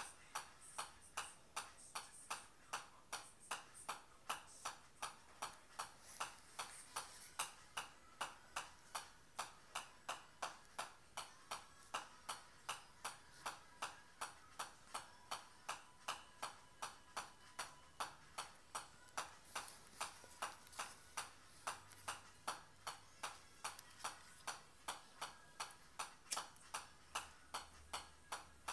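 Golf ball bouncing off the face of a pitching wedge, a sharp click at each hit, about two a second in an unbroken rhythm.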